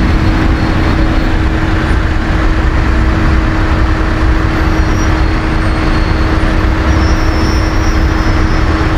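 A slow convoy of pickup trucks towing boats on the road: loud, steady engine and road rumble, heaviest in the low end, with one steady tone held underneath.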